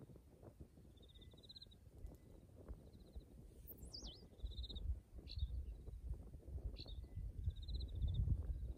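Small birds calling with short trilled notes every second or two, one giving a falling, wavering whistle about four seconds in. Underneath is low rubbing and thudding from hands kneading a back and shoulders through clothing, growing louder in the second half.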